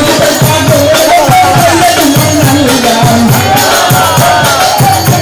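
Loud devotional song: a voice singing a wavering melody over a steady drum beat of about three strokes a second.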